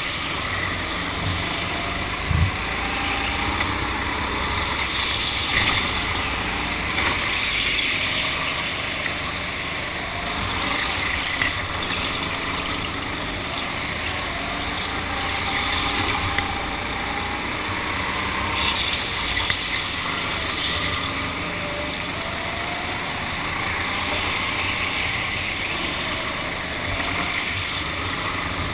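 Go-kart motor running at speed, its pitch rising and falling over a steady rushing noise. There is a single short knock about two seconds in.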